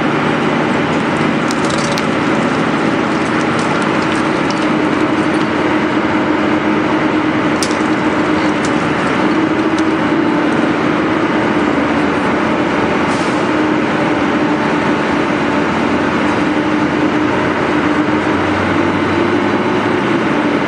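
Excavator engine and hydraulic pile breaker running under steady load with a wavering hum, and a few sharp cracks as it works on a concrete pile.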